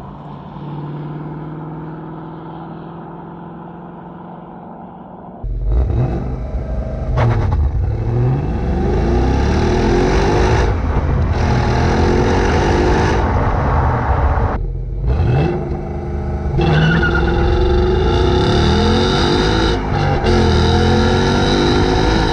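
Ford Mustang GT's V8 through an H-pipe and stock back boxes, running quietly at first, then coming on hard about five seconds in and revving up and down repeatedly, with a short break near the two-thirds mark.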